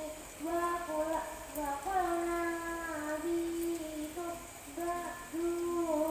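A high, young-sounding voice singing a melody in held notes, phrase after phrase.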